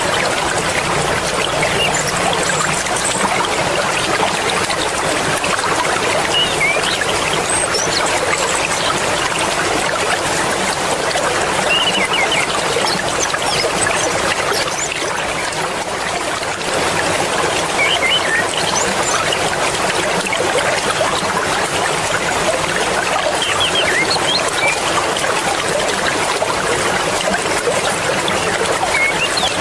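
Swift mountain river rushing and splashing steadily, with faint short high chirps here and there.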